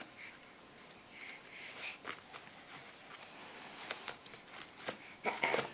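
Faint, breathy, unvoiced sounds from a baby, with scattered light taps and rustles, and a louder rustling burst near the end.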